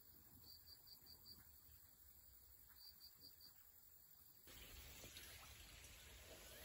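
Near silence, with a faint insect chirping high in short runs of four or five quick pulses that repeat every second or two. About four and a half seconds in, the background changes abruptly to a louder, hissier ambience.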